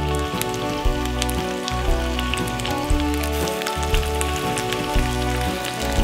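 Background music with a slow, even pulse about once a second, over a light, steady crackling sizzle of food cooking on an electric grill pan.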